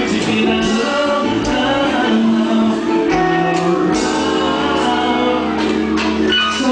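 Loud live band music with singing, with a long held note in the second half.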